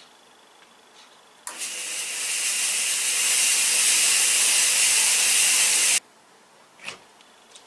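Fog machine blasting fog: a loud hiss with a low steady hum underneath starts suddenly about a second and a half in, swells slightly, and cuts off abruptly after about four and a half seconds. A single knock follows about a second later.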